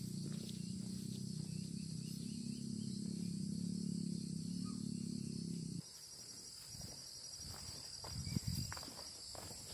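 Insects trilling steadily in the hillside vegetation. Under them a low steady rumble cuts off abruptly about six seconds in, leaving the insects, soft footsteps on a dirt path and light rustling.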